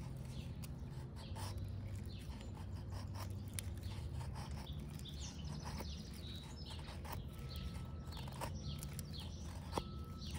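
Scandi-ground bushcraft knife shaving a slightly wet split log into a feather stick: a series of short scraping strokes as the blade slides down the wood and lifts curls. Birds chirp in the background.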